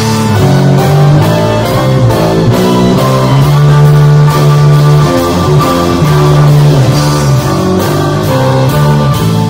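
Live string band with drums playing an instrumental stretch: plucked strings and held melody notes over a steady drum beat.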